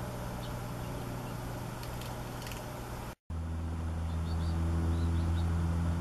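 Steady low hum of a motor vehicle's engine running nearby. It breaks off for an instant about three seconds in, then comes back louder and swells. Faint, short, high bird chirps sound over it.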